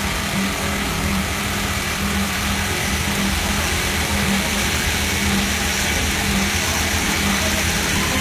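Computerized lockstitch pattern sewing machine stitching a patch pattern over a hole in denim jeans, running steadily, over the constant hum of other machinery on a garment factory floor.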